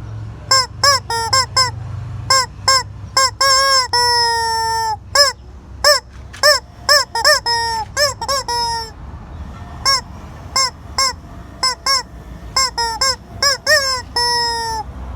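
Rubber squeaky chicken toy being squeezed over and over, giving quick runs of short, honking squawks with a few longer drawn-out ones.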